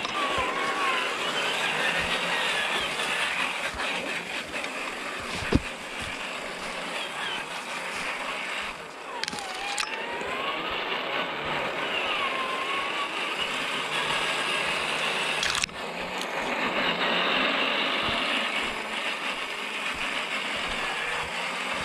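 Electric RC scale crawler truck driving over a trail: the motor and gear drivetrain whine, rising and falling in pitch with the throttle, over steady rolling noise. A sharp knock comes about five and a half seconds in, and the sound breaks off abruptly about two-thirds of the way through before carrying on.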